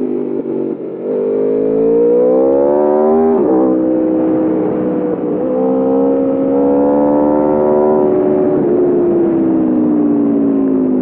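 The 2021 Aprilia RSV4 Factory's V4 engine, heard from onboard, pulling hard. The revs climb, the note breaks sharply about three and a half seconds in at a quick gear change, and the revs build again. Over the last few seconds the revs fall away as the bike slows.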